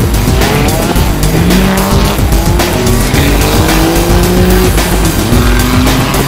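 Drag-racing cars' engines accelerating hard down the strip, their pitch climbing steadily, dropping back about four and a half seconds in as a gear changes, then climbing again. Music plays over the engines.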